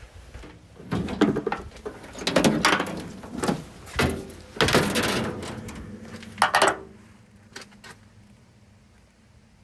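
Sheet-metal hood panels and parts being handled at a 1929 Buick's engine bay: a run of clanks and scrapes over about six seconds, then it goes quiet.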